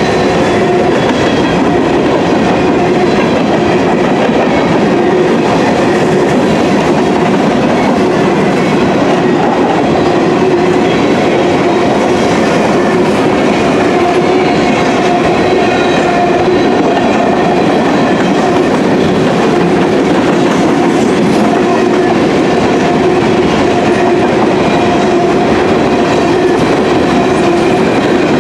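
Covered hopper cars of a freight grain train rolling past, their steel wheels rumbling and clacking steadily over the rails.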